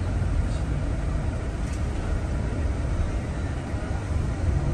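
Airport apron bus running, a low steady engine rumble as it moves across the apron.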